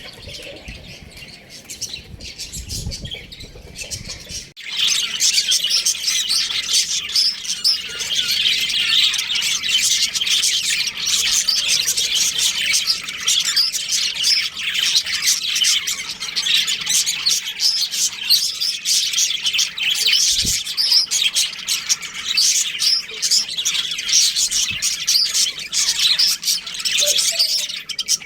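After a quieter opening, a dense, continuous chatter of many small birds chirping all at once starts abruptly about four and a half seconds in.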